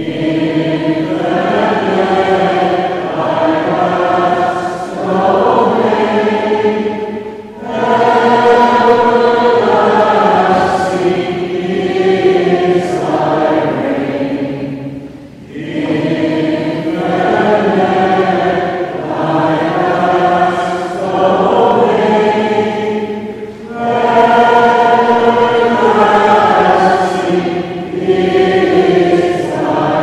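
A choir singing slow, sustained phrases, each about eight seconds long, separated by short breaths.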